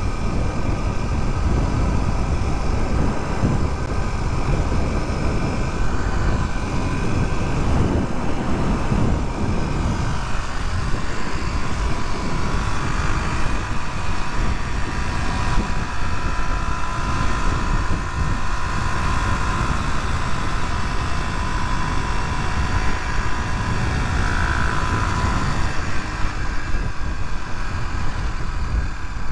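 Suzuki DR250 single-cylinder motorcycle being ridden at a steady pace, its engine holding an even note under a heavy rush of wind on the microphone.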